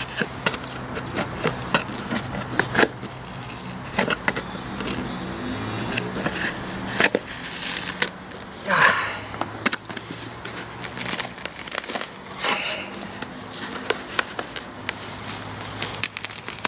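Glued seat foam being pulled and torn away from a fiberglass motorcycle seat base: irregular crackling and tearing with scattered sharp clicks and scrapes.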